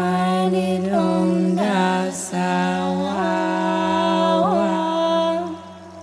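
Background music: slow held notes that slide from pitch to pitch over a steady low drone, fading away near the end.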